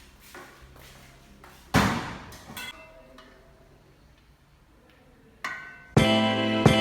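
A few faint knocks and a loud rustling thump about two seconds in, then background music starts near the end.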